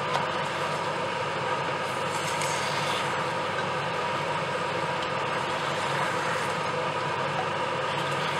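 Whole octopus cooking on high heat in its own released juices in a large stainless steel pot, sizzling and bubbling with a steady, even hiss.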